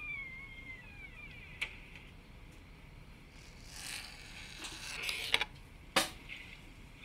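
Close handling noise: rustling with a few sharp clicks, the loudest about six seconds in, and a faint squeak that falls in pitch over the first second or so.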